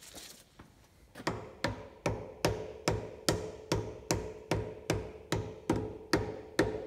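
A brass-faced mallet hammering repeatedly on a Bridgeport milling machine spindle to drive it up into the head. After a few light taps it strikes steadily, about two and a half blows a second. The blows take on a clear ringing tone, the sign that the spindle has reached its final seat.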